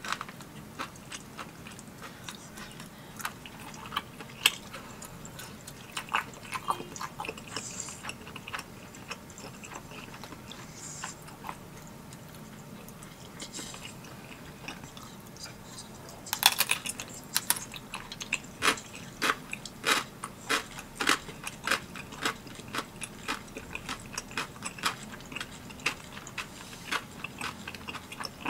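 Close-up chewing and biting while eating spicy tteokbokki: short wet mouth clicks, with a louder cluster of bites about halfway through, then steady chewing at about two clicks a second.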